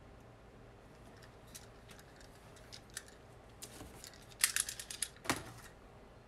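Small clicks and taps from objects being handled at a desk, over a low steady room hum, with a quick run of sharp clicks about four and a half seconds in and a single knock just after.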